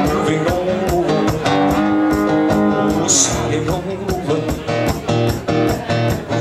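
Acoustic blues guitar played with a slide. It keeps a steady strummed rhythm of about four strokes a second under held notes that glide in pitch.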